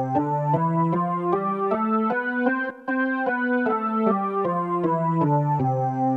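Yamaha PSS-F30 portable digital keyboard playing a simple melody of single notes in one of its preset voices, about three notes a second, rising and then falling, with a short break near the middle.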